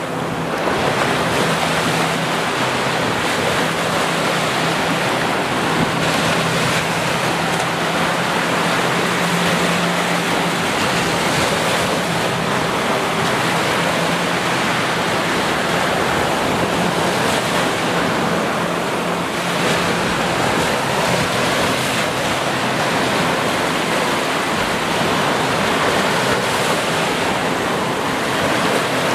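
Ocean surf washing onto a sandy beach: a steady rushing of waves that swells slightly now and then.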